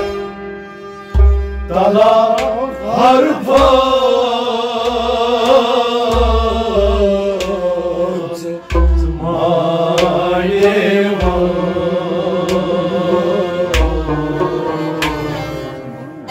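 Kashmiri folk song: a male voice sings long, wavering held notes over a hand drum that strikes low beats every couple of seconds.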